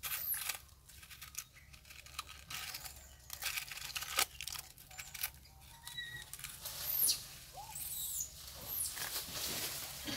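Dry leaf litter crackling and rustling in irregular bursts as monkeys move over it, with a few very high, arching chirps in the second half.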